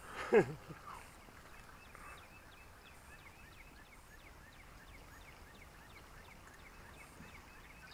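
A brief falling voice sound just after the start, then faint outdoor ambience with short high chirps repeating a few times a second.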